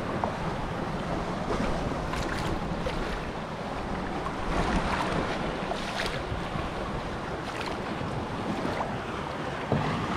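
Wind buffeting the microphone over lapping sea water, with several light splashes from a kayak's paddle strokes.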